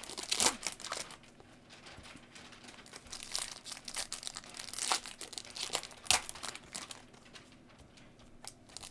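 Foil trading-card pack wrappers crinkling and tearing as packs are opened and cards handled, in irregular sharp crackles.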